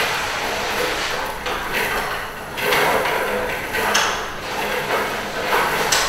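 Chain of linked steel coil springs being worked by hand, giving a metallic rattling noise that swells and falls irregularly about once a second.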